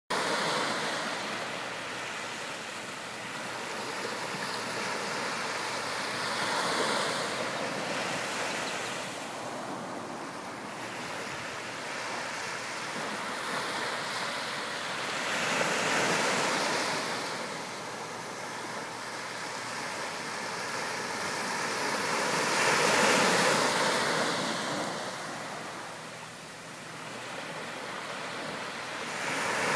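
Small waves breaking and washing up a sandy beach, a steady hiss of surf that swells to a louder wash every seven to nine seconds.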